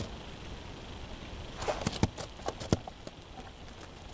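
A lagotto romagnolo puppy's footsteps close by on the snowy forest floor: a short, irregular run of clicks and knocks just under a second long, starting about a second and a half in, two of them louder than the rest.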